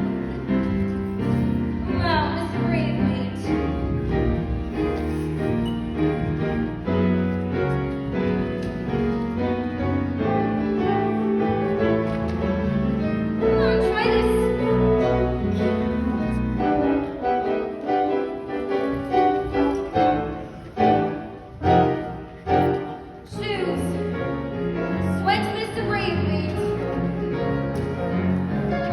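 Background music with a full, busy arrangement. Quick falling runs come a few times, and past the middle there is a stretch of sharp, separated hits.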